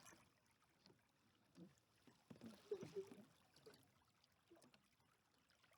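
Near silence, with a few faint short sounds about halfway through.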